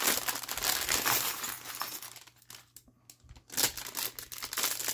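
Packaging crinkling and rustling as craft supplies are handled, pausing for about a second midway and then starting again.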